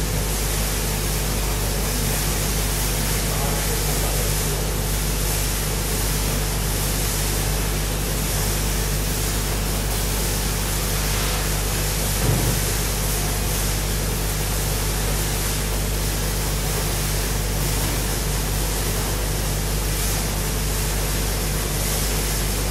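Industrial optical polymer sorter running on washed PET flakes: a steady hiss with a constant low hum, and one short thump about halfway through.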